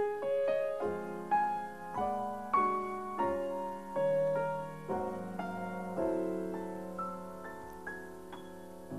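Grand piano playing a slow solo introduction to a ballad: chords struck about once a second, each left to ring and fade.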